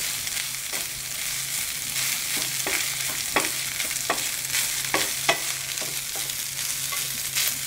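Wooden spatula stirring and turning cooked rice in a stainless steel pan: a steady soft scraping hiss, with light irregular knocks of the spatula against the pan about once a second.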